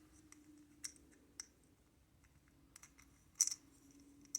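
Small plastic toy parts clicking as an on-off switch with a metal tab is pressed back into its plastic housing. There are a few scattered light clicks, and the sharpest comes about three and a half seconds in.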